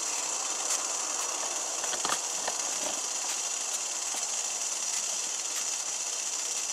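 Wood-gas camp stove burning pellets under a pot of boiling water: a steady hiss with a few faint crackles.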